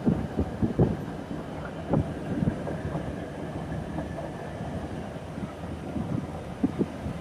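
Passenger train running, a steady rumble with irregular knocks and thuds from the wheels and carriage.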